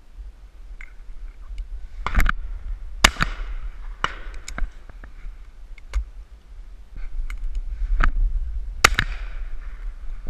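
Shotguns firing: a string of sharp reports with echoing tails, the loudest about three seconds in and again near the end, the others fainter. Wind rumbles on the microphone throughout.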